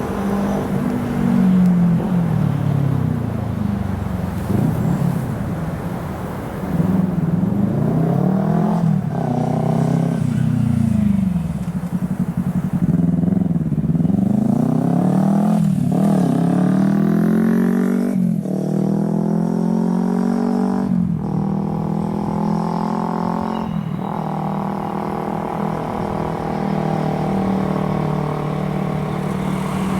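Meitetsu electric train running through the junction, its motor whine rising and falling in pitch over and over. Several sharp knocks come from the wheels in the second half.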